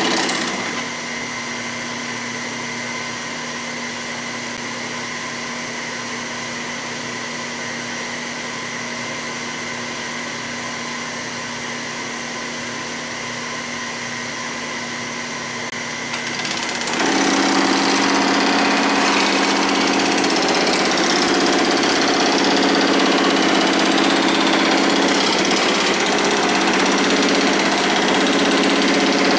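Pullmax-style reciprocating power hammer running steadily, its motor-driven upper die reciprocating rapidly. About a second in the sheet comes out of the dies and the machine runs on alone, quieter. From about 17 s the dies work a sheet-metal panel again, and the sound is louder and denser.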